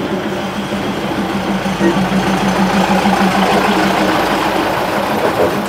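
State Railway of Thailand diesel railcar rolling past at close range, its engine running with a steady low hum under the noise of the moving train.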